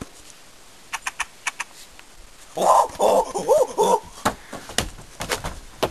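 A short wavering cry, like a yelp or animal-like call, a little past halfway, among scattered light clicks and knocks.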